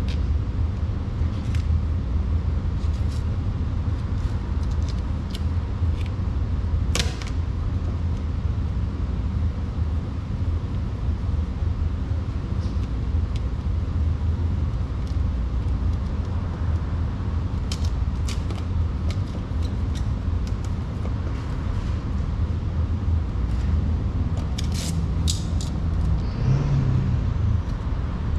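A steady low rumble throughout, with scattered short crackles and clicks from vinyl wrap film being pressed and handled by hand, bunched in a few clusters.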